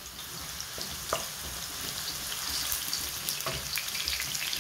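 Chopped onion sizzling in hot oil in a frying pan, the crackle slowly growing louder. A wooden spatula stirs it, knocking against the pan twice.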